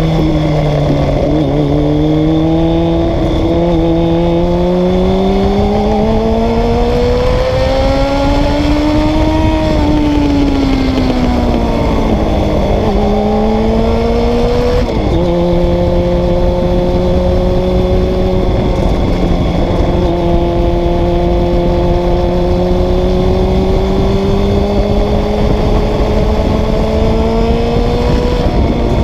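Honda CBR 600 F3's inline-four engine pulling under way: its pitch climbs for several seconds, falls back, then rises briefly and drops sharply about 15 seconds in as it shifts up, before holding steady and slowly climbing again. A dense rush of wind noise runs underneath.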